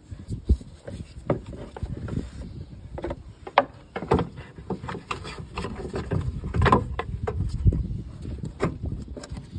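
Hollow plastic knocks, clunks and scraping as the air cleaner housing of a 2009 Cadillac Escalade is handled and worked back into place, an irregular string of knocks with a few louder clunks.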